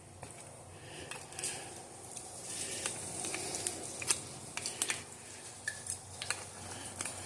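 Light metallic clicks and clinks of hand tools and engine parts being handled during piston and connecting-rod installation, irregular and scattered, with a cluster of sharper clicks about four to five seconds in.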